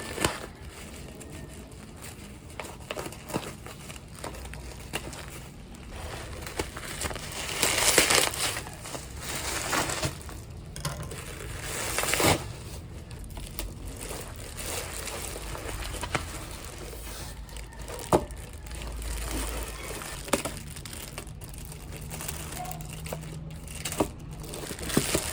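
Handling sounds: rustling and crinkling, with a few sharp clicks and taps scattered through, and louder rustling about eight to twelve seconds in.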